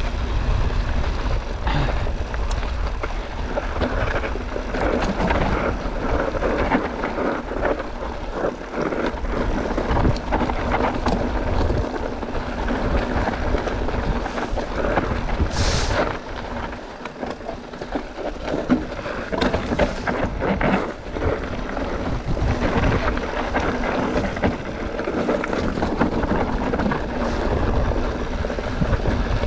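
Mountain bike riding down a rocky trail: wind buffeting the microphone, tyres rolling over rock, and the bike rattling and knocking over bumps.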